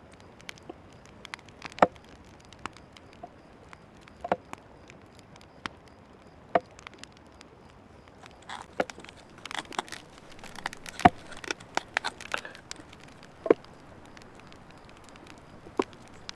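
Sparse sharp clicks and taps of wood being handled and worked, about one a second, with a quicker run of them in the middle and one louder knock, over a faint steady hiss.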